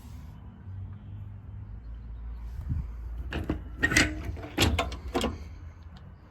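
A quick run of sharp knocks and clatters in the middle, over a low steady rumble.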